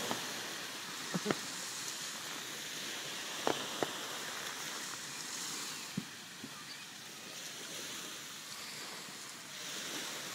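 Steady wash of surf, with scattered sharp firework pops: a pair about a second in, another pair a little after three seconds, and a single one at about six seconds.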